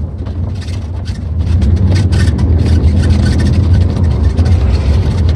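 Pickup truck driving slowly, heard from inside the cab: a steady low engine and road drone that gets louder about a second in, with many short clicks and rattles.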